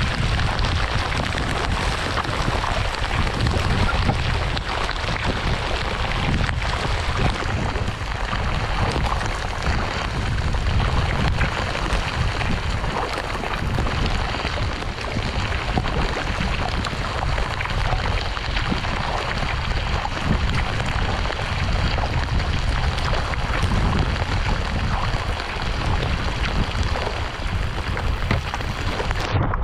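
Steady rain falling on the water around a kayak, with a low, gusting rumble of wind on the microphone.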